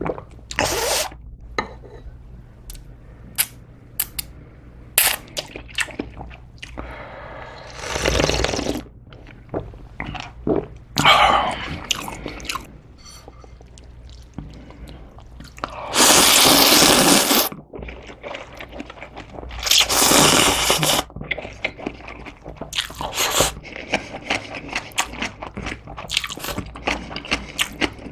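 Close-miked eating sounds of a person slurping wheat noodles and anchovy broth from a bowl of janchi guksu (Korean banquet noodle soup): several loud slurps, the longest about a second and a half a little past the middle, with chewing and sharp clicks of chopsticks against bowls in between.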